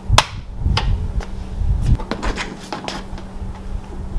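Footsteps and a few sharp clicks and knocks as a person moves about on a concrete garage floor, over a steady low hum. The loudest click comes just after the start.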